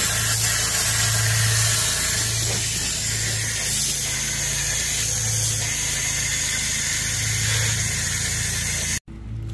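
Steady hiss of a water spray nozzle blasting through the radiator and oil cooler cores of a John Deere 7520 tractor to flush out packed dirt, with a steady low hum underneath.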